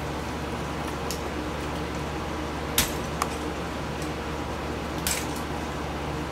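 A few small clicks and taps as wire connectors are unplugged from the camera's circuit boards, the two sharpest about three and five seconds in, over a steady low hum.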